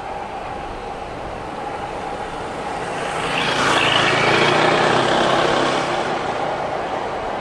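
Train running past over a level crossing. The rushing and rumbling builds from about three seconds in, is loudest around the middle and then eases off.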